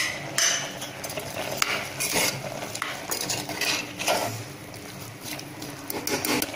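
Metal spoon stirring chopped vegetables and soft lentils in an open aluminium pressure cooker, scraping and clinking against the pot at irregular moments.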